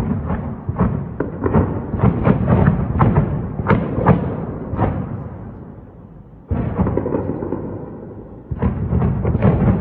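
A rapid run of distant bangs over a heavy low rumble that reverberates between them, dying away, then a sudden loud boom about six and a half seconds in and another burst of bangs near the end. Reported as explosions from Israeli strikes on Iran.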